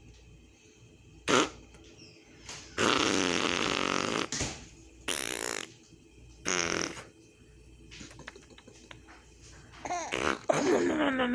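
A woman blowing fart-like lip raspberries as funny noises, several separate buzzing blasts, the longest about a second and a half. There is a short hiss partway through and wavering squeaky vocal sounds near the end.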